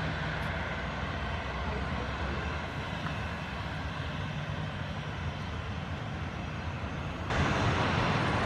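Boeing 737-800's CFM56-7B turbofan engines running at taxi idle with a steady whoosh and hum as the jet rolls past. About seven seconds in the sound suddenly becomes louder and brighter.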